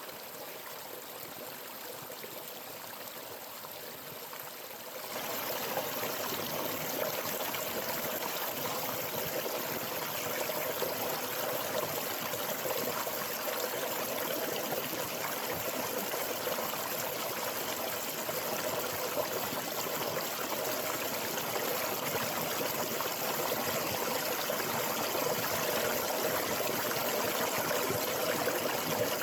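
Running water, like a small stream flowing and trickling steadily, growing louder about five seconds in.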